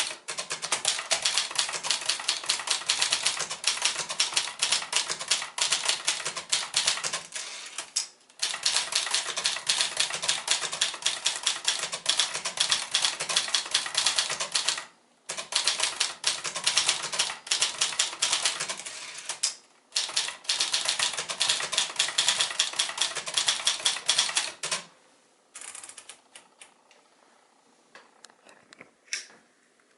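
1964 Signature 300 (Brother JP-1) manual portable typewriter being typed on fast: a dense run of key strikes, broken by short pauses about 8, 15 and 20 seconds in. The typing stops about 25 seconds in, leaving only a few faint clicks.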